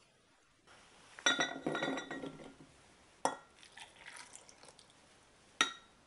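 Glass clinking against glass and water being poured from a glass pitcher into a glass measuring jug holding chestnuts. There is a cluster of ringing clinks about a second in, a single sharp clink around three seconds, a stretch of pouring, and a last ringing clink near the end.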